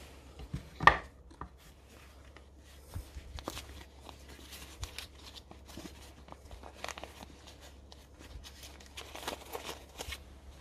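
Gloved hands rustling and crinkling brown paper wrapping while unwrapping a small steel angle block, with light clicks and taps of steel against the wooden case. A single sharp knock just under a second in as a block is set down into the case.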